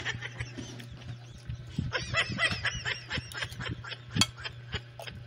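Metal spoon clinking and scraping on a ceramic plate of rice, with chewing, over a steady low hum; the sharpest clink comes about four seconds in. A wavering high-pitched call sounds in the background from about two seconds in.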